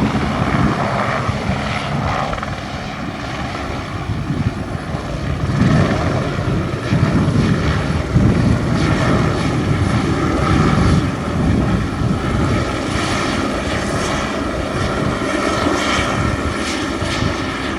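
Eurocopter AS350B single-engine helicopter in flight: a steady turbine whine over the pulsing chop of the main rotor, swelling and fading in loudness as it flies about.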